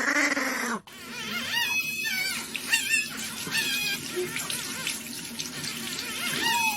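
A puppy growls briefly, then after a cut a puppy gives high, wavering whines and squeals, several times, over a steady hiss like running water.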